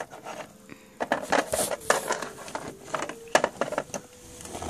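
Small plastic toys and toy accessories being handled and set down on a wooden surface: a run of light clicks and clatters.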